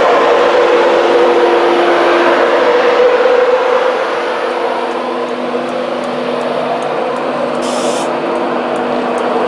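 Class 91 electric locomotive 91111 passing close at speed at the head of a passenger train. It gives a loud rushing of wheels on rail with steady humming tones, loudest as the locomotive goes by in the first four seconds, then a little quieter as the coaches follow. A short hiss comes about eight seconds in.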